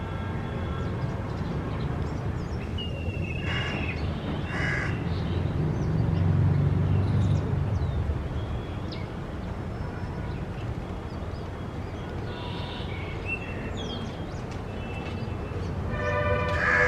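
Black kite giving shrill, whistling cries in a few separate calls, over a steady low rumble.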